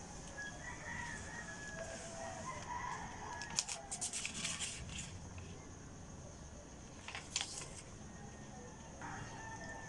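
A rooster crowing faintly over the first few seconds, then the paper pages of an instruction booklet being flipped: a quick run of crisp rustles, with one more short rustle about two seconds later.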